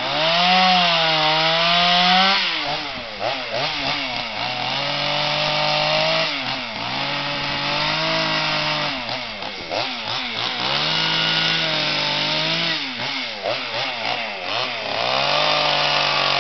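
Chainsaw running and cutting wood while carving, its engine pitch rising and falling repeatedly as the throttle is worked.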